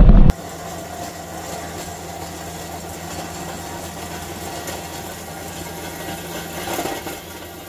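CAT 259D3 compact track loader's diesel engine running steadily while it drives a Harley power rake along a gravel driveway, heard from outside the machine. A fraction of a second of much louder engine and wind noise from inside the cab cuts off suddenly at the start.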